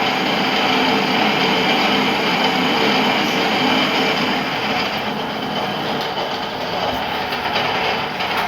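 Lathe running under power, a steady mechanical hum with fixed tones over a hiss; it eases slightly about five seconds in.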